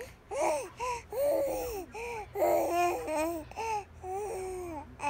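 A young infant cooing and babbling: a string of short, high-pitched vocal sounds, each rising and falling in pitch.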